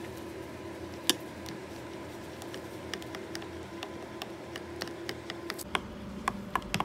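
Silicone spatula stirring thick mango purée in a glass dish, with light clicks and taps of the spatula against the glass, one sharp tap about a second in and quicker small clicks through the second half. A steady background hum runs underneath.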